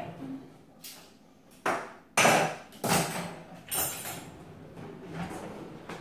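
Cutlery being put away into a kitchen drawer's tray: a series of sharp metallic clinks and knocks, about six in all, the loudest about two seconds in.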